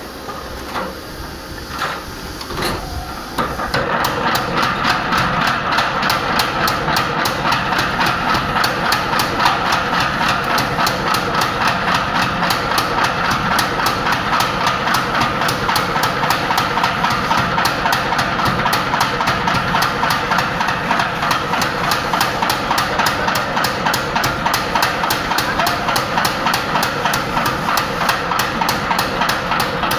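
Mechanical power hammer forging red-hot steel into cultivator shovels. A few separate blows come first, then about three and a half seconds in it settles into a fast, steady run of several strikes a second over the machine's running hum.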